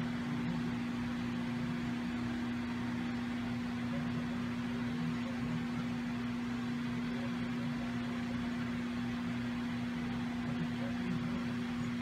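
Steady low electrical or mechanical hum with an even hiss behind it, unchanging throughout.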